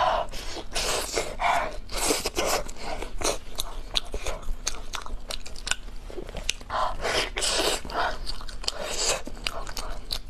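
A person biting and chewing durian pizza with a soft filling, close to the microphone, with many wet mouth clicks and soft crunches of the crust.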